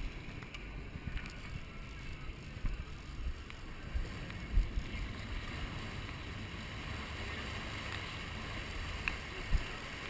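Wind buffeting the microphone in irregular low thumps, over a steady hiss of churning wake water behind a moving sportfishing boat.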